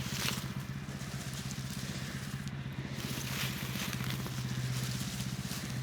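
Small gasoline engine of a portable sawmill running steadily, a low even hum that swells slightly partway through.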